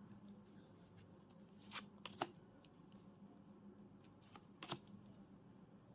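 Thick tarot cards handled quietly as they are turned over one at a time. There are a couple of soft card slides and flicks about two seconds in and two more about four and a half seconds in, over a faint low hum.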